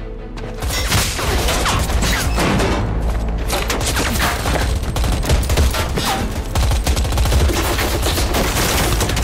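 Dense gunfire from several automatic weapons firing at once, a continuous fusillade that starts about half a second in. A film score plays under it.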